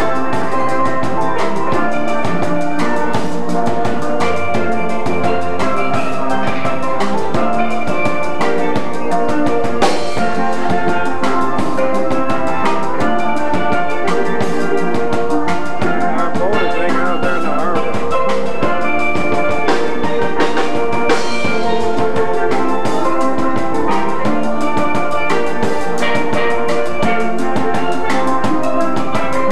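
Steel band music: steel pans playing a melody over a drum kit keeping a steady beat.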